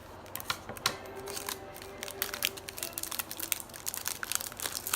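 Trading cards and their plastic wrapping handled and shuffled: a quick run of clicks, crinkles and card-edge rustles.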